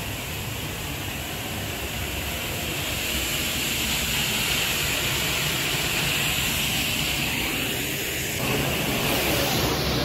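Steady rush of the Upper Düden Waterfall's falling water, heard from the cave passage behind the falls. It swells over the first few seconds and grows fuller near the end, as the passage opens onto the falls.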